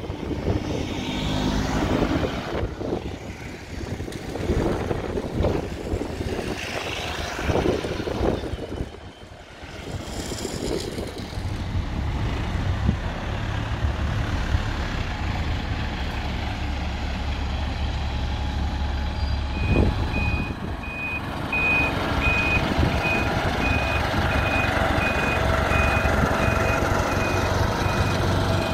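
A bus's engine running with a steady low hum; about twenty seconds in its reversing alarm starts, a single high tone beeping steadily at a bit more than one beep a second as the bus reverses.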